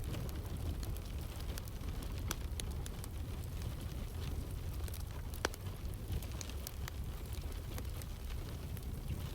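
Wood fire crackling with scattered sharp pops, the sharpest about two and five seconds in, over the steady hiss of rain.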